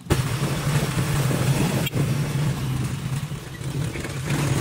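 Engine of a motorcycle-and-sidecar tricycle running steadily as it rides along, a constant low hum with road noise over it and a brief drop about two seconds in.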